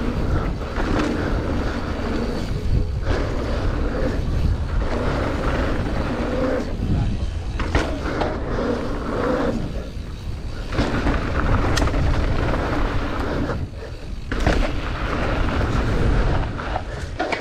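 Wind buffeting a body-worn camera's microphone and knobby tyres rolling over dirt as a mountain bike is ridden down a jump line, with a few sharp clunks and rattles from the bike over bumps and landings.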